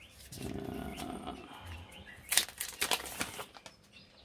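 Clear plastic film crinkling and crackling as it is handled and peeled off a small box. There is a soft rustle first, then a run of sharp crackles between two and three and a half seconds in.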